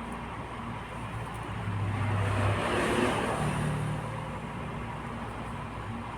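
Inverter refrigerator compressor humming steadily, its low tone stepping up in pitch in the middle. A louder rushing swell rises and fades between about two and four seconds in.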